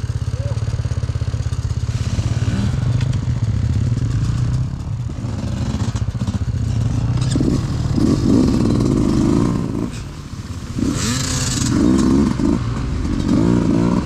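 Enduro dirt bike engine running at low revs, with several short bursts of throttle in the second half as the bike works through deep bracken. A brief rushing hiss about eleven seconds in.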